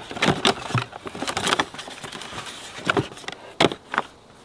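Cardboard boxes and an air-rifle hand pump being handled: a string of scrapes, rustles and light knocks, busiest in the first second and a half and again about three and a half seconds in.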